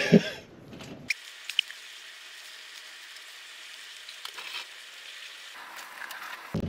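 A steady, fairly quiet hiss with a few faint clicks, after a voice trails off in the first moment.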